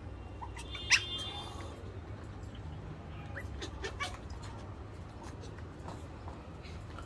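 Pomeranian puppy giving one sharp, high yip about a second in, then a few faint squeaky whimpers near the middle, over a steady low rumble.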